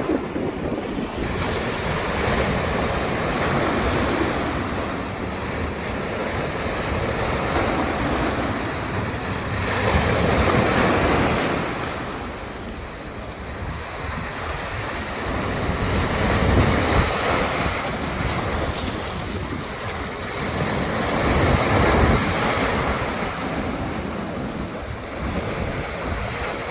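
Baltic Sea waves breaking on the shore, a steady rush that swells louder every five or six seconds as each wave comes in, with wind buffeting the microphone.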